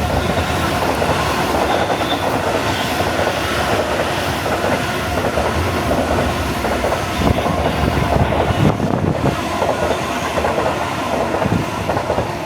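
Freight wagons loaded with scrap metal rolling past at speed behind a DB Class 66 locomotive, with steady wheel clatter over the rail joints. The noise eases off slightly near the end.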